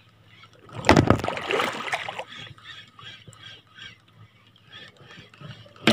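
A fishing reel being cranked to retrieve a lure: a faint, steady, evenly repeating ticking. About a second in, a loud burst of rustling noise lasts about a second.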